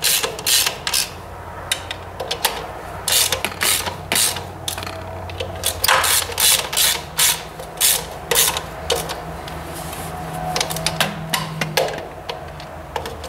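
Ratchet socket wrench clicking in quick runs with short pauses between them as housing bolts are cranked in a little at a time. A faint low hum runs underneath.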